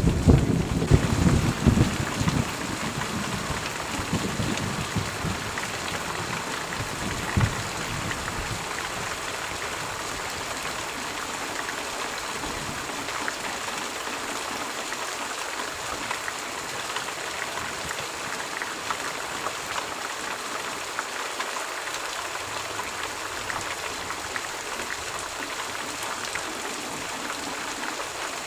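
Steady rain with a clap of thunder right at the start that rolls and fades over a few seconds, then a second shorter rumble of thunder about seven seconds in.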